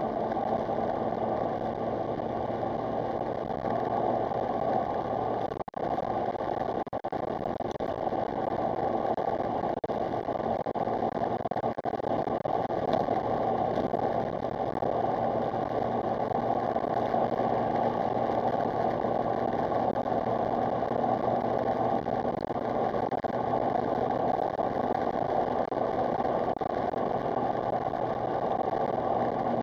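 Smart Roadster Brabus's small turbocharged three-cylinder engine running steadily on new coil packs and plug leads, with short dips in level about six, seven and twelve seconds in.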